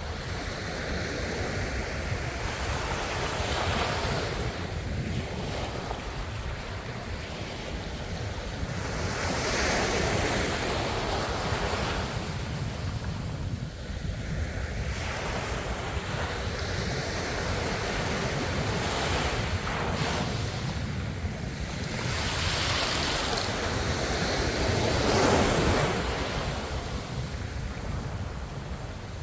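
Ocean waves breaking and washing on a shore over a steady low rumble of surf. Louder surges come every few seconds, the loudest near the end.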